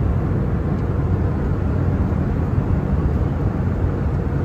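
Steady low rumble of airliner cabin noise inside an Airbus A321neo in cruise, the engine and airflow noise carrying on unchanged.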